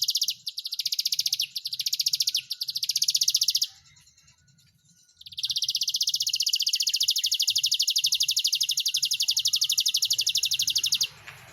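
Domestic canary singing a loud, very fast rolling trill in two long phrases, with a pause of about a second and a half between them; the second phrase runs about six seconds and stops shortly before the end.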